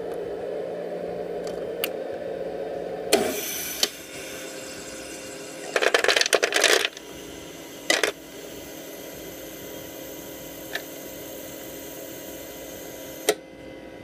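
Magic Chef countertop ice maker going through its harvest cycle. Its steady running noise stops with a clunk about three seconds in, then a quick clatter of ice cubes dropping off the prongs into the plastic basket comes about six seconds in. A couple of single knocks follow later.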